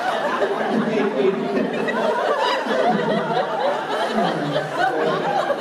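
A large audience laughing, many voices at once.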